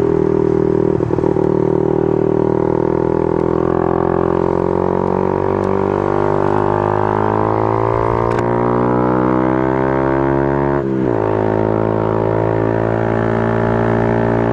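Motorcycle engine running while riding, heard from on the bike. Its pitch climbs slowly as it accelerates, then drops sharply a few seconds before the end, as at a gear change, and holds steady after.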